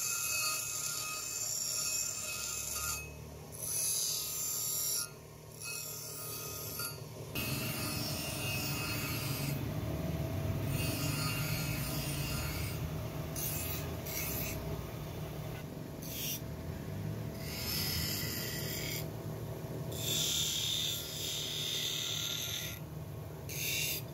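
Knife blade being ground on a spinning grinding wheel: a harsh rasping hiss that breaks off briefly about ten times as the blade is lifted and set back on the wheel, over the grinder's steady low hum.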